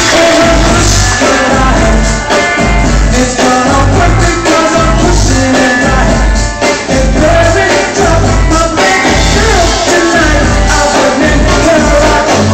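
Loud dance music with a heavy bass beat about once a second and a melody over it, played for a stage dance routine.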